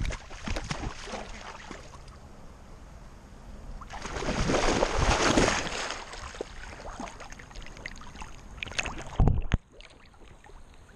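Water splashing and sloshing as a dog wades through a shallow creek, picked up by a camera strapped to her back, with a longer, louder spell of splashing about four seconds in and a sharp knock just after nine seconds, after which the sound turns muffled.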